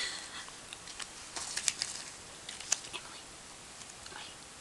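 Glossy magazine cutouts and photos being handled and shuffled: a scatter of short paper crackles and rustles, clustered about a second in and again near three seconds.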